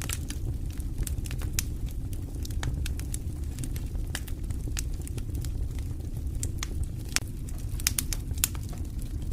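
Wood campfire crackling, with frequent sharp irregular pops over a steady low rumble.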